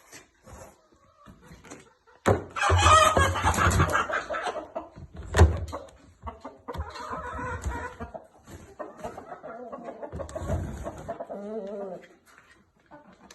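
Chickens squawking and clucking, loudest in a burst about two seconds in, with a sharp knock about five seconds in and more calls near the end.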